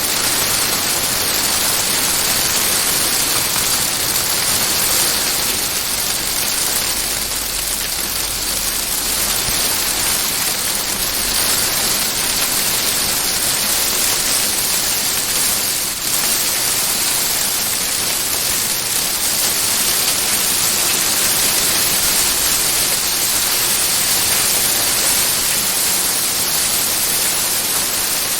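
Hail and rain drumming on a greenhouse roof, heard from inside: a dense, steady hiss of countless small impacts.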